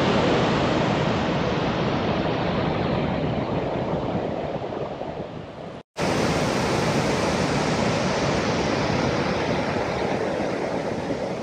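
Victoria Falls on the Zambezi River: the heavy, steady rush of a huge volume of water plunging into the gorge, a thunderous sound. It breaks off for an instant about halfway through and picks up again just as loud.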